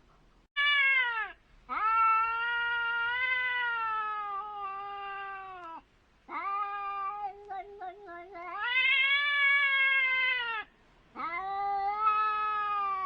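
Cats caterwauling as two cats confront each other. There are four drawn-out, wavering yowls, one after another with short pauses between them. The first is brief and the others last several seconds each, their pitch rising and sagging.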